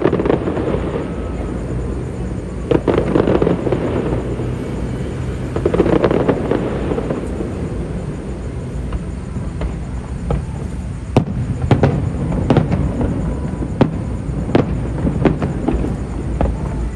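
Aerial fireworks going off: deep booming bursts with crackling tails every few seconds, then a quick run of sharp cracks and pops in the second half.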